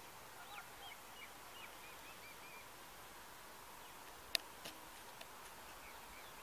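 Faint bird chirps, a quick run of short notes, over a quiet background hiss, with one sharp click about four seconds in and two fainter ticks just after.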